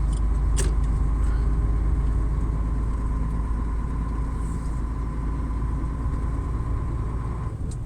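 Truck engine and road drone heard from inside the cab while driving: a steady low rumble with a faint steady high whine that stops near the end, and a single click about half a second in.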